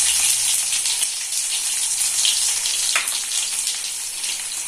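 Crushed ginger and garlic with mustard seeds sizzling and crackling in hot sesame oil, with one sharp click about three seconds in.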